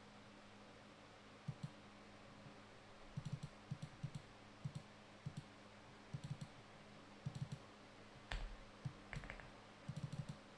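Faint scattered clicks, coming in small clusters every second or so, with one sharper click and a low thump a little over eight seconds in, over a steady low hum.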